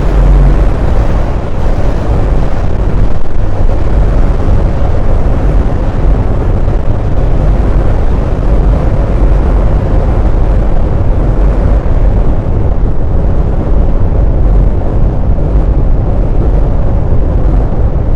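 Synthesized sci-fi sound effect of a big machine running: a loud, steady, heavy low rumble with a faint hum.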